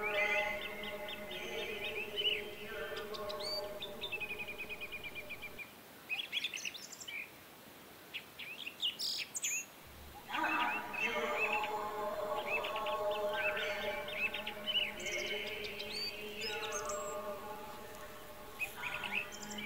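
Small birds chirping and trilling, with quick rising calls throughout, over a sustained chord of held tones. The chord drops out for a few seconds in the middle and comes back suddenly about ten seconds in.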